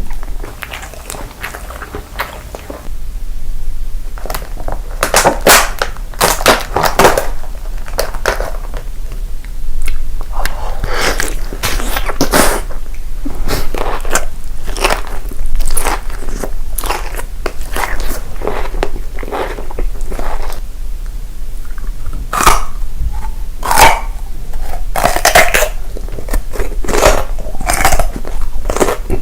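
Close-miked eating: crunchy bites followed by irregular crackly chewing, with a quieter stretch in the first few seconds.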